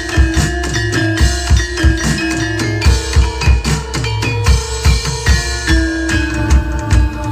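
Loud Javanese music with drums and a heavy bass drum beating a steady rhythm under struck, pitched metal percussion in the gamelan style.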